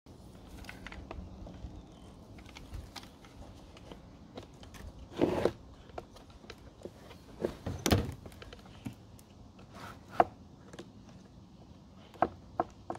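Plastic clicks, knocks and a short scrape as a plastic power strip is handled and set into a green plastic Electraline IP54 weatherproof cable box. The loudest knock comes about two thirds of the way through, with a sharp click soon after.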